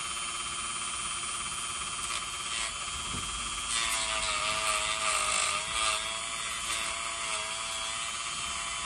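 Dremel rotary tool running with a steady high whine while cutting through a hardened rubber boot. From about four seconds in until about seven and a half it gets louder and its pitch wavers and dips as the tool bites into the rubber.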